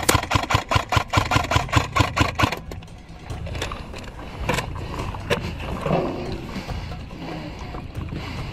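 A fast, even run of sharp knocks with low thuds, about six or seven a second, that stops about two and a half seconds in. After it come quieter field sounds with a few single clicks.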